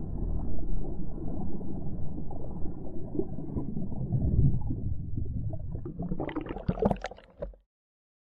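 Muffled gurgling and sloshing of water around a submerged action camera, low and dull with no motor heard. About six seconds in come sharper splashes, and the sound cuts off suddenly near the end.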